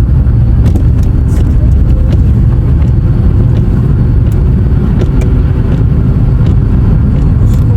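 Car being driven, heard from inside: a loud, steady low rumble of engine and tyres on the road, with a few faint ticks.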